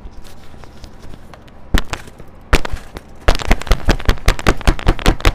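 Upturned plastic bucket being banged by hand to knock the last wet eggshell slush out into a filter bag: a couple of separate knocks, then a rapid run of loud knocks, about six a second, near the end.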